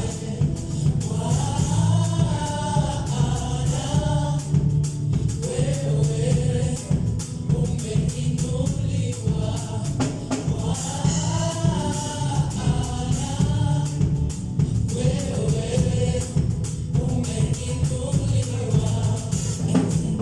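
Gospel choir singing in phrases over a live band with a heavy bass and a steady beat, with tambourine.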